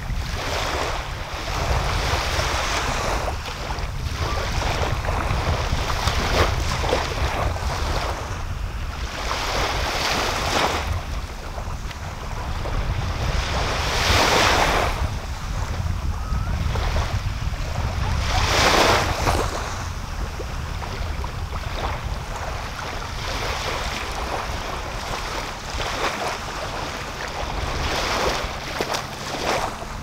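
Small waves washing and breaking on a sandy beach in repeated swells, two of them louder a little past the middle. Wind buffets the microphone with a steady low rumble underneath.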